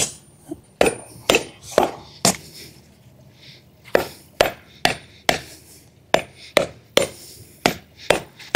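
A heavy hammer striking the top edge of a steel landscape edging strip, driving it into the ground: a series of sharp knocks about two a second, with a pause of about a second and a half a couple of seconds in.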